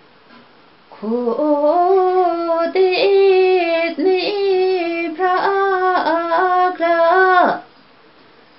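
A woman singing a Limbu hakpare samlo unaccompanied: one long phrase of held, bending notes that begins about a second in and ends with a falling slide near the end.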